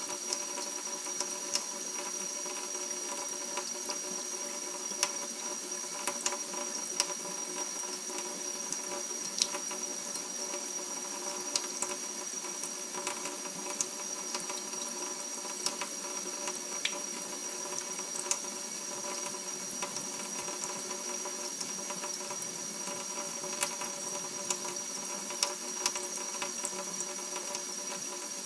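Thin stream of water from a kitchen faucet running steadily into a stainless steel sink, with scattered sharp ticks throughout.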